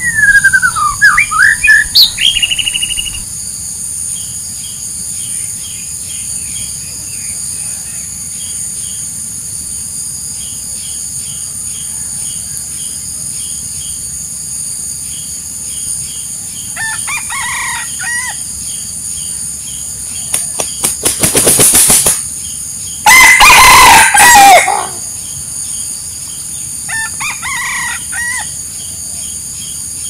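Wild rooster crowing several times: a loud crow at the start, a fainter one around 17 s, a burst of wing flapping about 21 s in followed by the loudest crow, and another fainter crow near the end. A steady high insect drone runs underneath.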